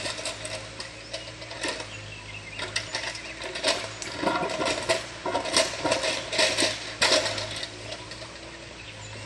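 Mini excavator at work on a stone wall: irregular clinks and knocks of stone and metal, thickest in the middle, over a faint steady engine hum.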